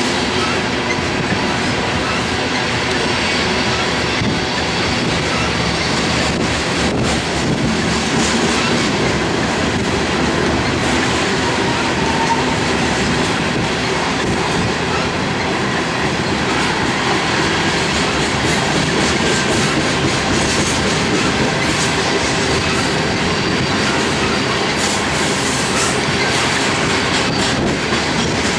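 Loaded coal hopper cars of a freight train rolling past at a steady speed: a continuous, even rumble and clatter of steel wheels on the rails.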